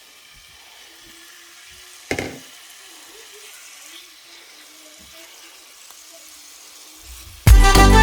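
Marinated chicken frying in hot oil in a pan, a faint steady sizzle, with a single sharp knock about two seconds in. Loud music cuts in near the end.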